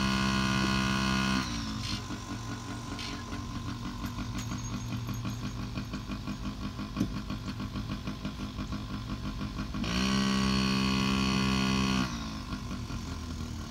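Yamaha PW50's small two-stroke engine held steady at higher revs, dropping about a second and a half in to a quieter, evenly pulsing idle. It revs up again for about two seconds near the end, then falls back to idle.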